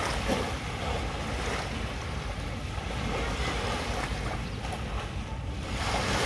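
Small waves lapping at a sandy shoreline, with wind rumbling on the microphone.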